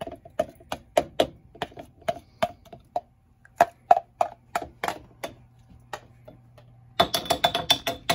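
Metal spoon clicking and scraping against a plastic blender cup and a glass mason jar as thick blended ice slush is spooned out. It makes a string of sharp clicks, two or three a second, with a quicker flurry of taps about seven seconds in.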